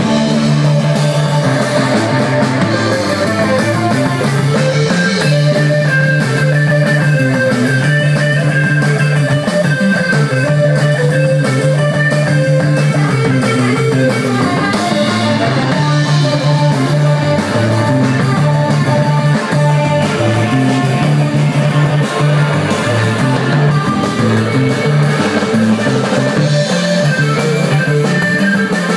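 Rock band playing live and loud: guitar over changing bass notes and drums.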